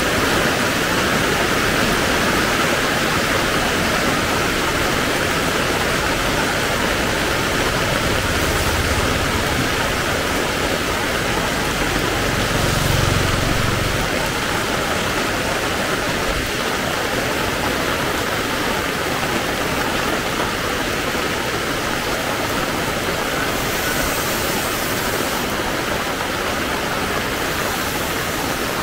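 Heavy rain falling steadily, a dense, even hiss. A low rumble rises and fades around the middle.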